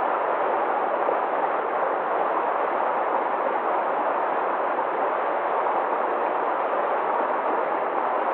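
Steady, even rush of flowing river water, with no changes in level.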